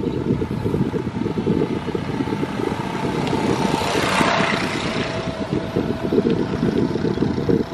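Wind buffeting the microphone of a handlebar-mounted camera on a moving bicycle, a steady gusty rumble. About halfway through, a passing motor vehicle swells and fades, its engine note dropping in pitch as it goes by.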